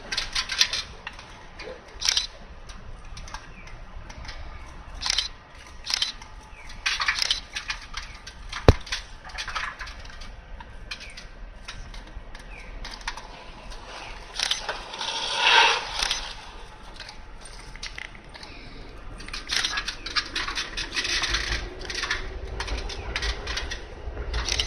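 Irregular knocks, clatter and scrapes as a large station-name sign board is handled and fixed to a wall by workers on stepladders. There is one sharp click about nine seconds in and a louder rasping scrape about a second long around fifteen seconds in. A low rumble builds near the end.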